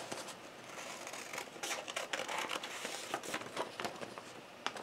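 Scissors cutting through a sheet of paper: a run of irregular, fairly faint snips with the paper crinkling as it is turned, one sharper snip near the end.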